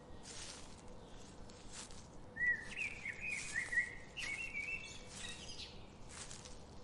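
A songbird singing a run of quick warbling chirps for about three seconds, starting a little over two seconds in, over a steady background hiss of forest ambience with soft swells like rustling leaves.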